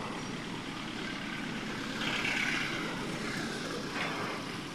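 Road traffic on an unpaved dirt road: a minibus and cars driving past, engines and tyres on the dirt, with a louder moment about two seconds in.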